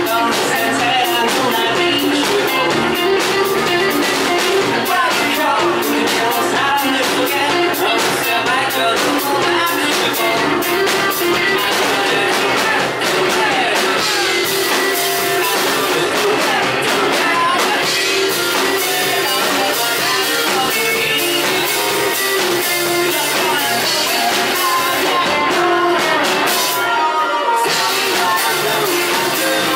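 Live indie rock band playing a song: a male lead vocalist singing over electric guitar and drums.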